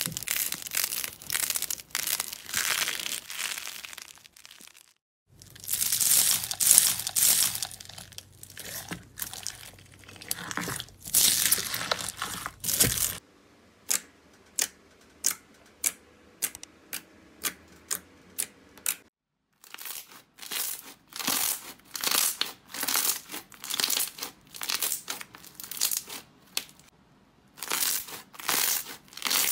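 Slime squeezed, pressed and kneaded by hand: dense crackling and clicking, with short breaks at the cuts between clips, and in the middle a stretch of separate sharp pops, about two a second.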